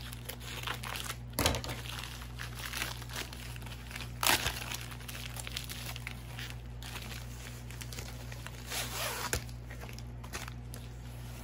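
Plastic packaging of a diamond painting kit crinkling and rustling as it is handled and opened, with louder sudden crackles about a second and a half in and about four seconds in, and more rustling near the end.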